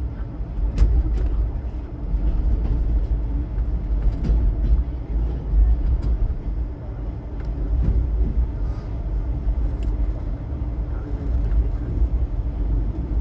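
Passenger train running: a steady low rumble of wheels on the track, with scattered clicks and rattles.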